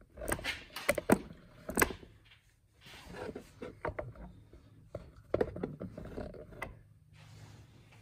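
Sharp plastic clicks and knocks as clips are pushed back into place on a 2012 Mercedes CLS550's engine air filter housing, in two clusters of handling noise with a short pause between.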